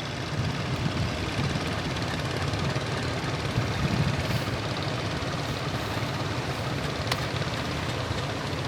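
Fishing boat's engine running steadily, with a single sharp click about seven seconds in.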